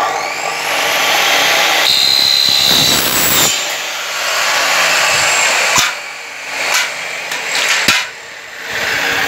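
Electric chop saw with a toothed blade cutting a gold-coloured aluminium window profile: a loud, high-pitched whine as the blade bites the metal. The sound falls and rises again a few times as the cuts go on, with a couple of sharp clicks near the end.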